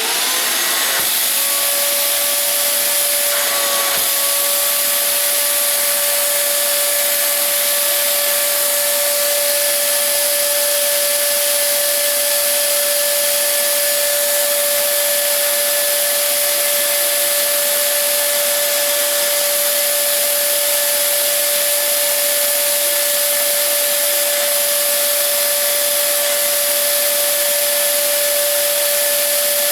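Shop vacuum starting up with a quick rising whine, then running steadily and loudly with a high whine over rushing air, supplying suction to a vacuum clamp's suction pad.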